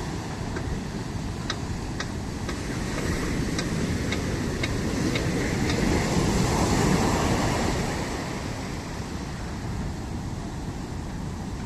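Sea surf: a steady rushing wash that swells with a breaking wave about six seconds in. In the first few seconds there is a row of short, high ticks about twice a second.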